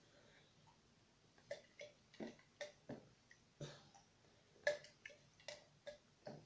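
Soft eating sounds of a toddler being spoon-fed a smoothie: a string of short smacks and clicks from mouth and spoon, about two or three a second, starting after about a second and a half of near silence.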